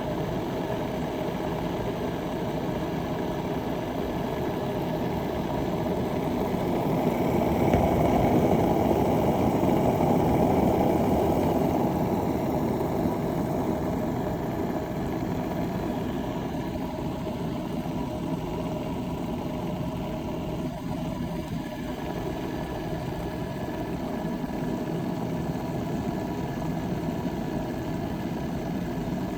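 Water heating to the boil inside a Bodum gooseneck stainless steel electric kettle: a steady churning noise that swells about eight seconds in and then eases a little.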